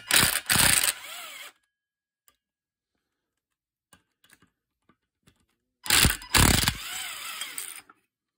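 Plastic and metal parts of a brushcutter engine rattling and scraping as they are worked apart by hand, in two loud bursts about six seconds apart, with a few faint ticks between them.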